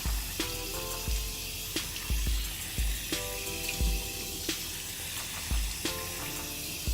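Background music with a deep, repeating beat over the steady hiss of running tap water while a face is rinsed.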